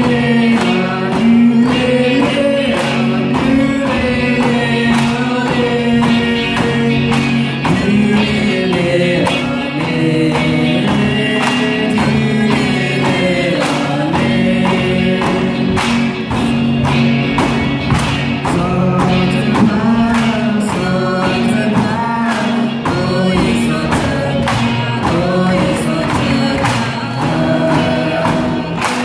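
Music with group singing, over a steady beat of bamboo poles clacking together and against the floor to keep time for a bamboo dance.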